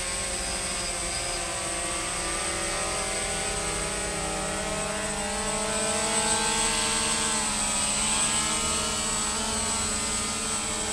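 DJI Phantom FC40 quadcopter, fitted with new propellers and prop guards, humming in flight as its four motors and propellers spin. The pitch drifts up and down as the throttle changes, rising and getting a little louder about six seconds in, with a brief dip around eight seconds.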